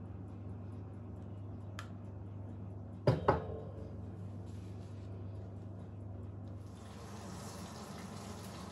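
Kitchen background sounds: a steady low hum, then two sharp knocks a fraction of a second apart about three seconds in. From about seven seconds in, a steady hiss like a running tap comes in.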